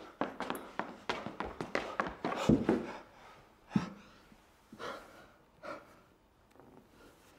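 Quick footsteps and stamps on a wooden stage floor, with a heavy thud about two and a half seconds in as the performer drops to the floor, then a few loud breaths, as in panting.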